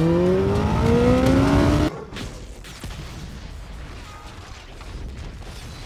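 Motorcycle engine revving hard as it accelerates, its pitch climbing steadily for about two seconds before cutting off suddenly. A quieter low rumble is left behind.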